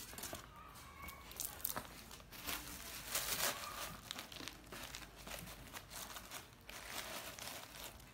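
Paper crinkling and rustling as hands pull paper packing out of a leather handbag and handle the bag, in irregular bursts, loudest a little after three seconds in.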